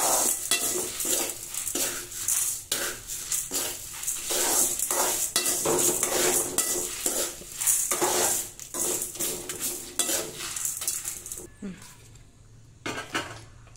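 Steel spoon scraping and stirring dry-roasted black urad dal, red chillies and curry leaves around an aluminium kadai, in repeated strokes. The stirring stops a little over three quarters through, leaving it much quieter apart from a single clink.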